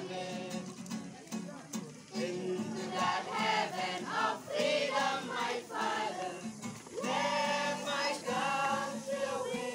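A group of boys singing together as a choir to acoustic guitar, in sung phrases with held notes and brief breaths between them about two seconds in and again near seven seconds.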